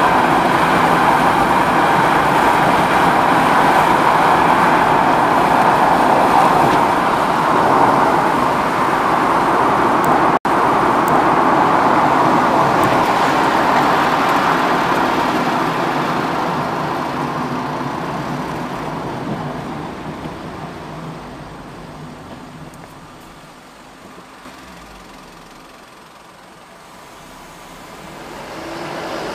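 Road and tyre noise with the engine running, heard from inside a moving car. It holds steady at speed, cuts out for an instant about ten seconds in, then dies away as the car slows to a stop in traffic, and builds again near the end.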